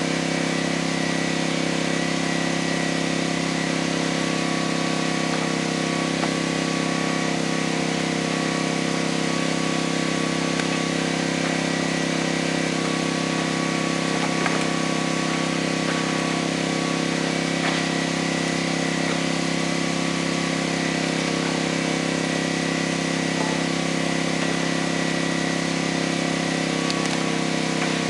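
An engine running steadily at one constant speed, with a few faint taps now and then.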